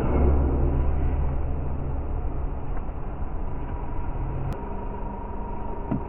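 A vehicle driving along a highway: a steady low engine and road rumble that eases slightly over the seconds. A single short click comes about four and a half seconds in.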